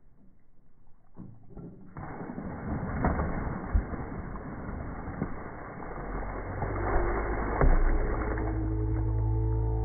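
Water thrown from a bucket rushing and splashing over dirt, litter and rocks, starting about two seconds in, with a few sharp knocks. A low steady droning tone comes in about six seconds in and grows.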